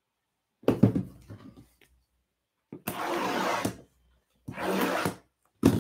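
A shrink-wrapped cardboard box being handled on a table: a knock as it is set down, then two rasping sounds, about a second long each, as it is slid and handled, and another knock near the end.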